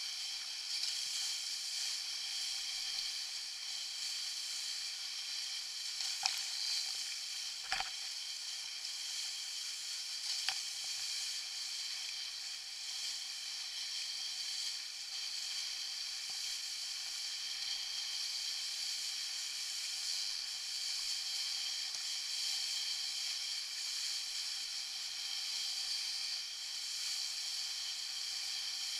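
Steady hiss of water rushing and spraying along the hull of a Buzz sailing dinghy moving fast through choppy water, with a few short knocks about six to ten seconds in.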